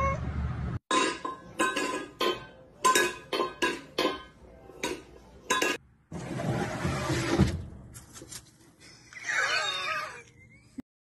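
About a dozen sharp clinks with a brief ringing tone, struck at an uneven pace over about five seconds, typical of taps on metal, glass or crockery. They are followed by a burst of steady rushing noise and, near the end, a short wavering pitched sound.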